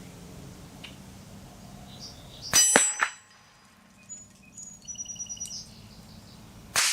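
A Mossberg 715T .22 LR rifle fires once about two and a half seconds in, followed within a fraction of a second by a metallic ring, likely the bullet striking a steel target. A second shot cracks right at the end. Birds chirp in between.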